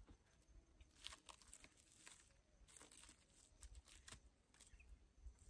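Faint, scattered crinkling and clicking of a fork picking at fried fish in a takeaway food tray, a handful of soft crackles over a few seconds.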